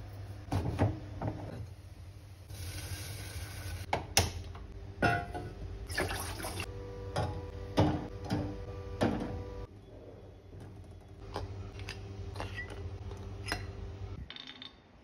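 Kitchen clatter: a metal pot and utensils clinking and knocking on a gas stove, with water sloshing as eggs go into a pot of water, over a steady low hum.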